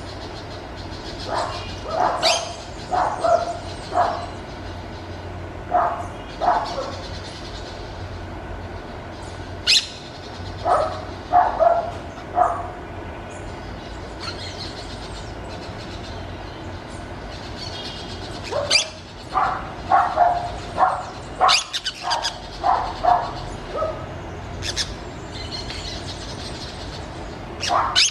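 Orange-chinned parakeets calling: short calls in clusters of several, with pauses of a few seconds between the clusters, over a steady low background hum.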